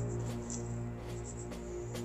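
Background music with sustained low held notes, in a dark cinematic style.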